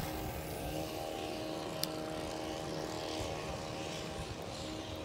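A distant engine running in a steady drone that holds one pitch, with a single small click about two seconds in.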